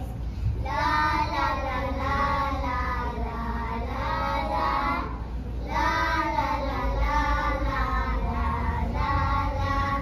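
Young children singing a song, with a short break about halfway through.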